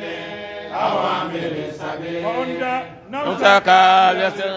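Men's voices chanting religious verses in long, drawn-out melodic lines, with a louder phrase about three seconds in.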